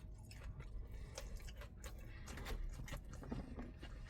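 A person chewing a mouthful of crispy fried chicken, faint, with small irregular crunching clicks.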